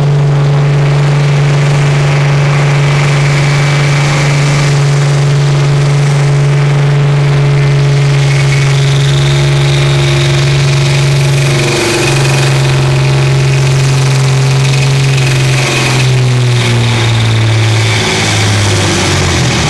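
Deutz tractor's diesel engine running flat out under full load while pulling a weight sled. Its pitch holds steady for most of the pull, then drops in several steps near the end as the sled's growing load pulls the revs down.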